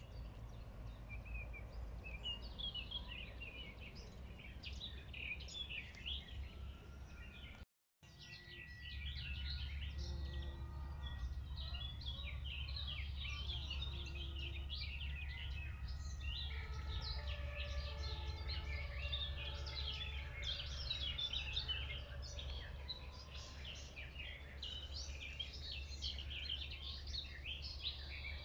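Several small birds singing and chirping, with many quick overlapping calls, over a steady low rumble. The sound cuts out briefly about eight seconds in.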